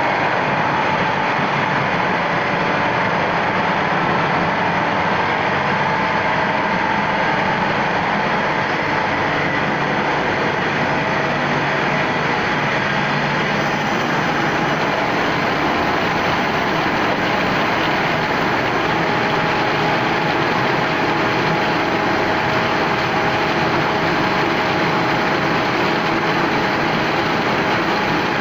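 Tube ice machine's refrigeration plant running steadily: a constant loud mechanical noise from its compressor and motors, with faint steady humming tones.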